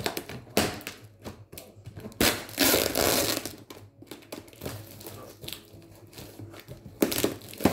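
Scissors cutting through brown packing tape and cardboard on a parcel. A long, loud rip of tape being torn off the cardboard comes about two seconds in, and there are sharp scissor clicks and taps against the box near the end.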